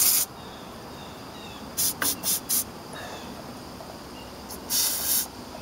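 Aerosol can of engine degreaser sprayed in short hissing bursts: one right at the start, four quick ones about two seconds in, and a longer spray near the end.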